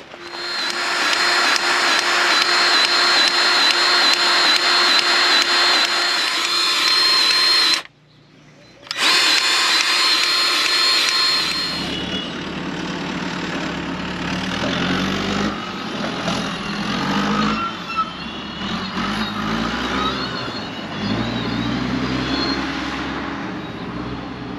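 A power tool runs at a steady high whine, in one run of about eight seconds and another of about three after a short break, while a nut is being worked off a machine. Then a lower, uneven engine sound rises and falls in pitch, like throttle being blipped.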